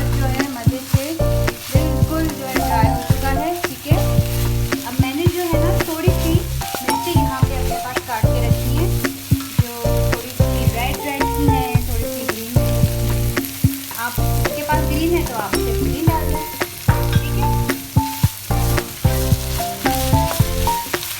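Chicken keema sizzling in oil in a pan on a high flame, with a spatula stirring and scraping against the pan. Background music with a steady beat plays over it.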